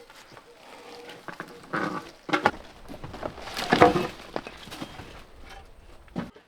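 Rotten wooden boards being torn out and broken apart: a series of knocks and cracks, the loudest about four seconds in.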